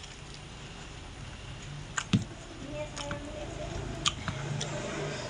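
Eating sounds: a metal spoon clicking and scraping against a plate of rice and curry, with chewing, in a few sharp clicks that are loudest about two seconds in.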